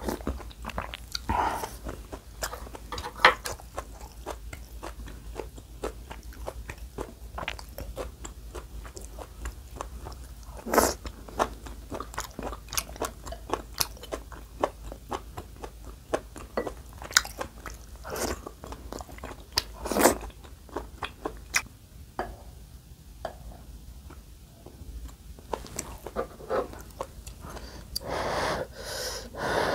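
Close-miked chewing and wet mouth clicks from eating rice cake dumpling soup. Near the end there is a longer, louder stretch as a spoonful of dumpling goes into the mouth.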